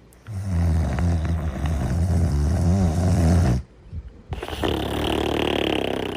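Snoring in deep sleep: one long, low buzzing snore of about three seconds, a short pause, then a second, breathier snore with a hiss in it.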